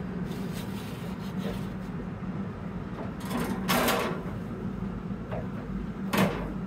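Pit Boss pellet grill running hot with a steady low hum. A gloved hand rubs across the metal grates a few times, making short rasping scrapes: one around three to four seconds in and another near the end.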